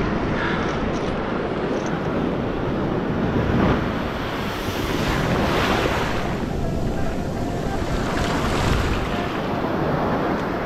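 Ocean surf washing onto the beach, with wind rumbling on the microphone; the wash swells and eases a few times.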